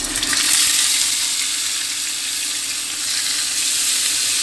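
Thick strips of beef chuck eye steak sizzling in hot peanut oil in a non-stick frying pan: a steady hiss that starts sharply as the meat goes into the pan.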